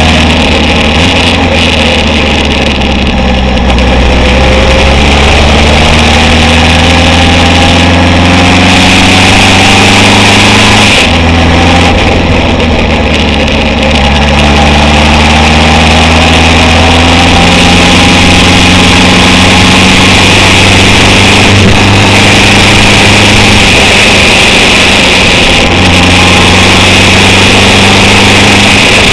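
Honda CB750 chopper's inline-four engine running under way on a winding climb. The revs rise and fall through the bends, and the pitch breaks and resets a few times, as at gear changes. A steady rush of wind noise runs under it.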